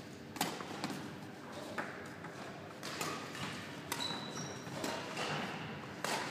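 Badminton rally: a racket striking a shuttlecock about five times, sharp hits roughly a second or so apart, echoing in a large sports hall. A brief high squeak comes about four seconds in.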